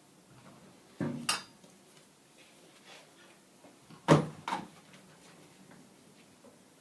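Wood and metal clunks as a piece of wood is set and clamped in a bench vise: two double knocks, about a second in and about four seconds in, the second louder.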